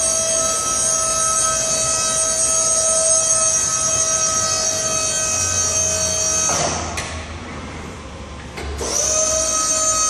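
Electric walk-behind stacker's motor whining steadily at a high pitch while its forks rise up the mast. About two-thirds of the way through, the whine drops in pitch and stops for about two seconds, then winds back up and runs on.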